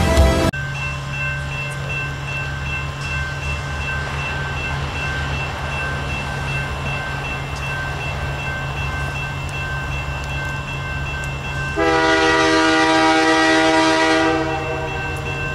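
Railroad grade-crossing bell ringing steadily over the low rumble of an approaching Lake State Railway diesel freight. About twelve seconds in, the locomotive's horn sounds one long blast of about two and a half seconds.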